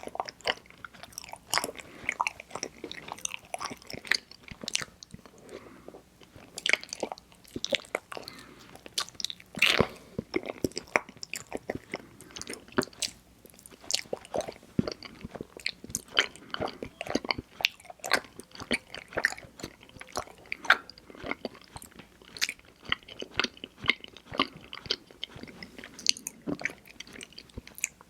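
Close-miked chewing of mochi ice cream: a steady run of irregular wet mouth clicks, smacks and squishes.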